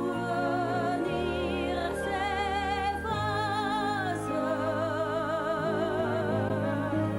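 Musical-theatre singing: long held notes with wide vibrato over a sustained instrumental accompaniment, the melody moving to a new note about every second.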